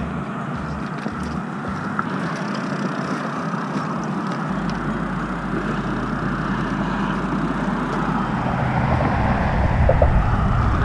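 Road traffic from a highway: a steady rush of passing vehicles that grows louder near the end.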